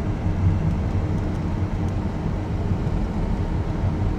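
Steady road and tyre noise inside a moving electric car: a low, even rumble with no engine sound.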